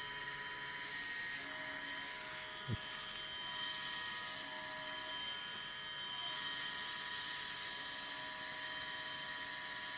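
The electrically driven gyroscope rotor of a vintage turn and slip indicator spinning on 28-volt power: a steady high-pitched whine made of several tones. A short thump comes about three seconds in.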